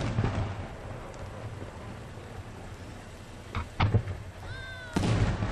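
Aerial firework shells launching and bursting: a sharp bang right at the start, two quick cracks just before four seconds, and a big boom about five seconds in that rumbles on as it echoes.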